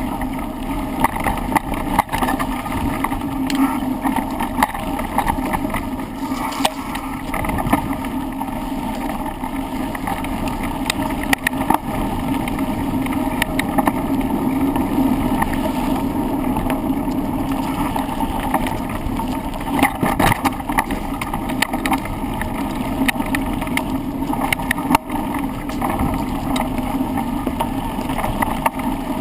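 Bike ridden fast downhill over rough ground, heard from a handlebar-mounted camera: a steady rush of tyres and wind with frequent rattles and knocks from the bike.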